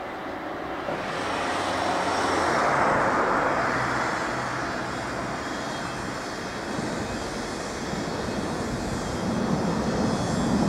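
Rumbling noise of an approaching train that swells, eases a little, then grows louder and deeper near the end as the train nears the level crossing.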